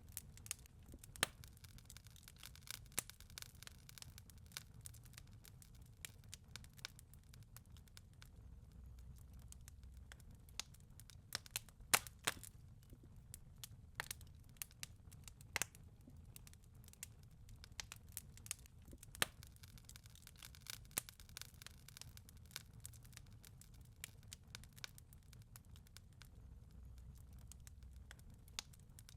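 Fireplace crackling softly: irregular sharp pops and snaps, a few louder than the rest, over a low steady rumble.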